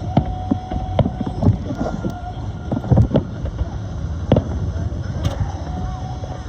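Fireworks going off: a run of sharp bangs at irregular intervals, the loudest pair about three seconds in, over a steady low rumble.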